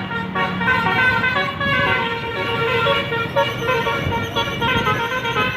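An Indonesian bus's multi-tone "telolet" air horn playing a quick tune of shifting notes, over the low rumble of the bus engine.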